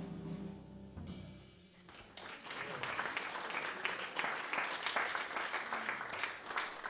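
A jazz quartet's final chord dying away, then audience applause starting about two seconds in and carrying on.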